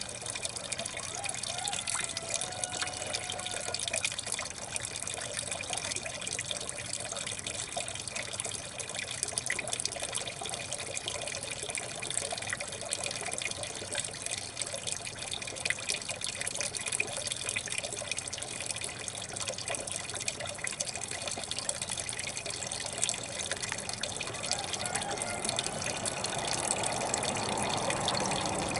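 Wastewater from a toilet flush trickling and running steadily out of a drain pipe outlet into a bucket, the flow swelling slightly near the end.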